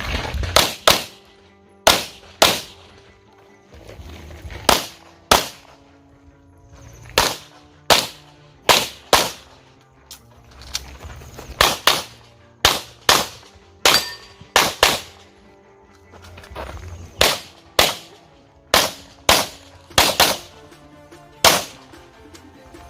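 Handgun shots fired in quick pairs during an IPSC course of fire, about thirty sharp cracks in all, with short pauses between the pairs and strings.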